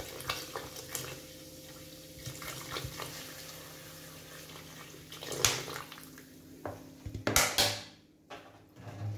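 Mineral water pouring from a plastic bottle into a large pot already full of liquid, a steady faint splashing. From about five seconds in, a few louder knocks and clatters of cookware as the pouring ends.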